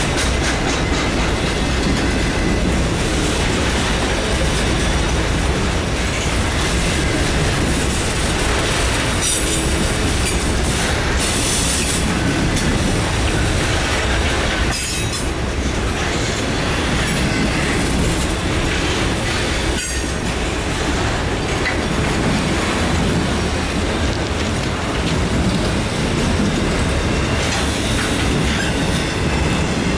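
Autorack freight cars rolling past close by: a steady rumble of steel wheels on the rails, with clickety-clack over the joints and wheel squeal now and then.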